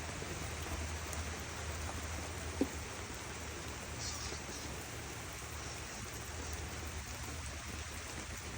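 Light rain pattering steadily on foliage. There is a single sharp tap about two and a half seconds in and a brief faint high chirp near four seconds.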